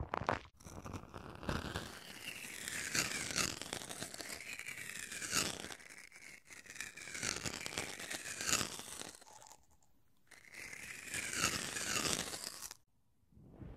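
Curved clear plastic sheets set over a pair of binaural microphones, rubbed and scraped by a metal tool. The plastic gives crinkly, scratchy strokes with a sweeping squeak about once a second, pauses briefly, and stops shortly before the end.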